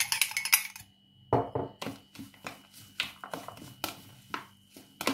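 A metal spoon clicking quickly against a glass cup as the last of the dressing is scraped out, then, from about a second and a half in, irregular crisp rustles and light knocks as frisée and cherry tomatoes are tossed by hand in a plastic bowl.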